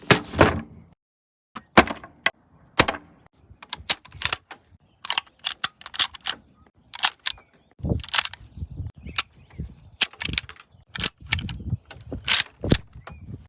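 Mosin-Nagant M91/30 rifle: a loud bang at the very start, then a long irregular series of sharp metallic clacks and knocks as the bolt is worked over and over. This fits the hard, sticky bolt cycling that steel-cased 7.62x54R ammunition is known to cause in this rifle.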